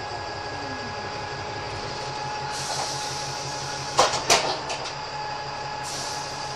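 DAF SB200 Wright Commander single-deck bus running with a steady whine over its engine hum. A hiss of air starts about two and a half seconds in, then two sharp clunks and a few lighter rattles come about four seconds in, and a second air hiss follows near the end.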